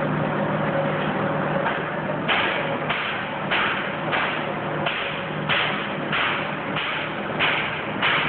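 Two-layer blown film line running with a steady machine hum. From about one and a half seconds in, a regular swishing pulse repeats roughly every 0.6 seconds over it.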